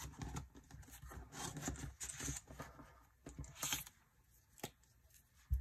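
Highlighter tip dragged across planner paper in a run of irregular scratchy strokes as a colour is swatched. A short low knock comes at the very end.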